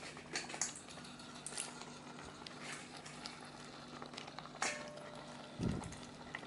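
Coconut-milk curry simmering in a pan as whole mud crabs are put in and moved about, their shells giving small clicks and knocks. There is a sharper click about four and a half seconds in and a dull thump a second later.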